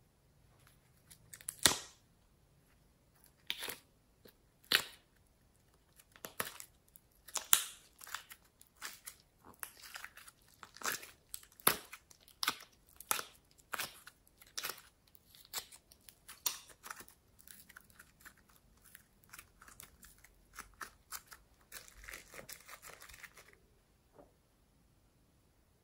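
Thin clear plastic container crackling and clicking as it is flexed and soft clay is pulled out of it: irregular sharp crackles and clicks, with a short rustling stretch near the end.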